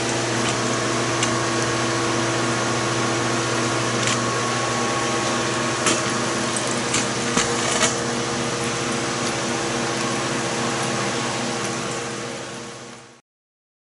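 Steady machinery hum from the running distilling rig, with a few light clicks about six to eight seconds in, fading out near the end.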